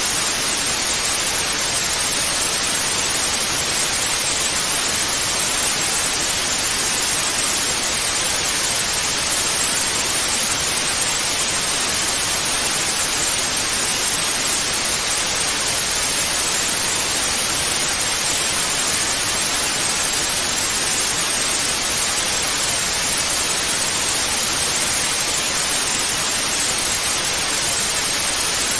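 Television static: a steady, even hiss of white noise with no changes.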